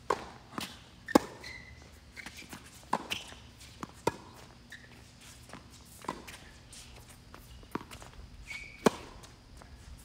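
Tennis ball struck by rackets and bouncing on a hard court during a quick doubles rally with volleys at the net: a string of sharp, irregularly spaced pops, the loudest about a second in and again near the end.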